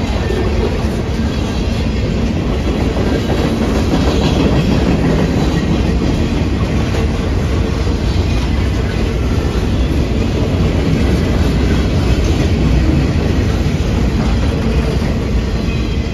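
Freight cars rolling past close by: a steady, loud rumble of steel wheels on rail.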